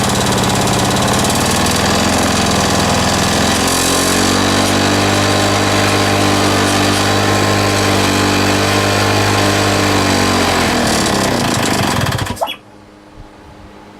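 Mountfield lawn mower's petrol engine, fitted with a homemade big-end bearing shell, running loud with its speed wavering for the first few seconds. It then holds steady, winds down and stops about twelve seconds in.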